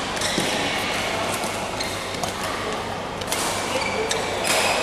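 Badminton play on an indoor court: rackets striking the shuttlecock as sharp, irregular clicks over a steady background of hall noise.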